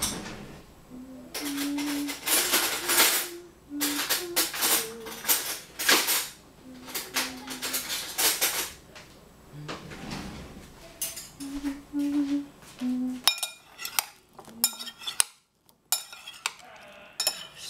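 Metal spoon and fork clinking and scraping against a ceramic bowl as a salad of cucumber and cheese cubes is tossed, in sharp separate clicks over the last few seconds. Before that, several seconds of rough repeated scraping strokes.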